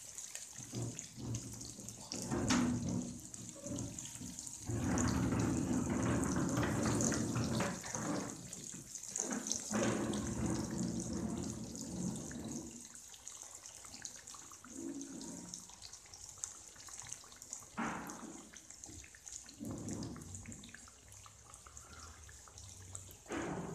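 Fish pieces deep-frying in hot oil in a kadai, a steady bubbling sizzle. Louder, lower spells of noise come and go as a slotted steel spoon stirs and turns the fish.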